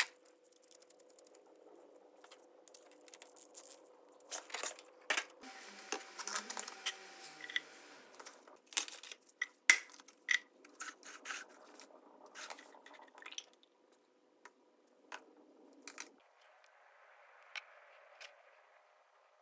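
Irregular clicks, knocks and scraping from small objects being handled, thinning out to a few isolated clicks after about fourteen seconds.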